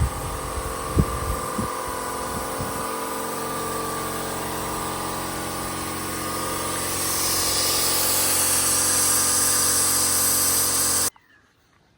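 Electric power tool running steadily, with a few knocks in the first few seconds. It grows louder and hissier about seven seconds in, then stops abruptly near the end.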